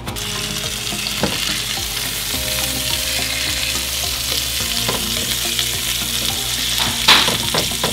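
Seasoned turkey breasts searing in a hot cast-iron skillet: a steady sizzle, with a few clicks of a metal utensil against the pan as the meat is turned, and a louder flare of sizzling near the end.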